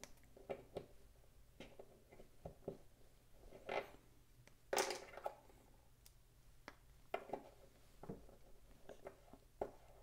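Faint small clicks and taps of plastic as spacer plugs are pressed into new jockey wheels and the parts are handled on a tabletop, with two louder, sharper clicks about four and five seconds in.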